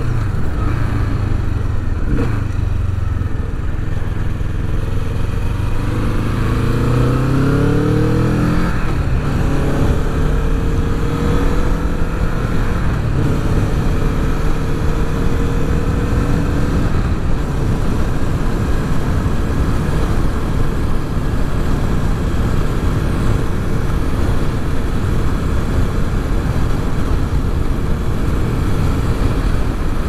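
Kawasaki Vulcan S's 649 cc parallel-twin engine under way at road speed. It rises in pitch as it accelerates about six seconds in, then holds a steady cruise over a constant low rumble.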